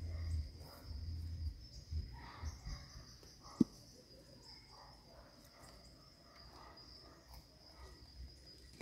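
Cricket trilling, a steady high thin tone, over low rumbling in the first second and a half, faint rustles, and one sharp click a little over three and a half seconds in.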